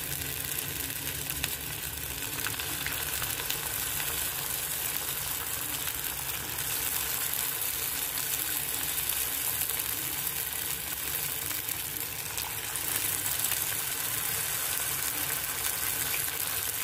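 Potato-filled dough rolls deep-frying in hot mustard oil in a kadai, a steady sizzle and bubbling of the oil around them.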